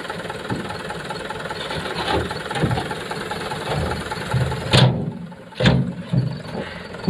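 Dump truck's diesel engine running while its raised tipper body is lowered after unloading. Two loud bangs about five seconds in, about a second apart, as the swinging tailgate shuts against the body.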